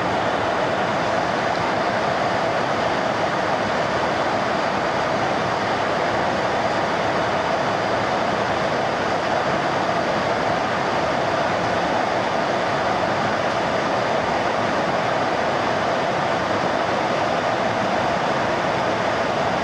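Steady drone of jet engines and rushing air inside a large aircraft's cabin, an even noise that does not change.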